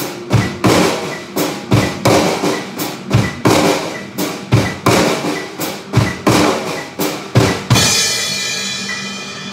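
Drum kit played in an even pattern of about three hits a second, snare and bass drum, with a steady high tick keeping time underneath. The playing stops about eight seconds in on a last hit that rings out and fades.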